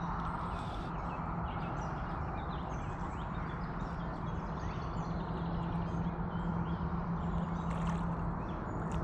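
A steady low hum under an even rushing hiss, with faint short bird chirps above. The hum cuts out briefly about eight seconds in.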